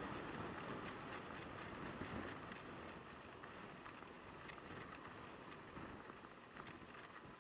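Riding noise from a Yamaha YZF600R Thundercat sport bike on the move: a steady rush of wind and road noise with no clear engine note, growing gradually quieter as the bike slows, with a few faint clicks.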